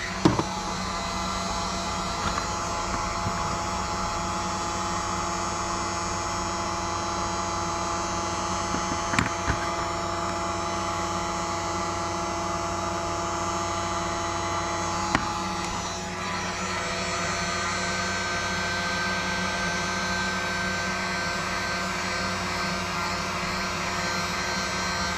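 Ace electric heat gun running steadily, its blower motor humming, as it heats a lead jig head for powder painting. A few light taps sound near the start and about nine and fifteen seconds in, and the hum's pitch shifts slightly about sixteen seconds in.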